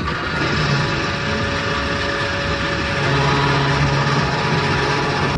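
Petrol pump dispensing fuel into a car: a steady mechanical hum over a rushing noise, the low hum growing a little stronger about three seconds in.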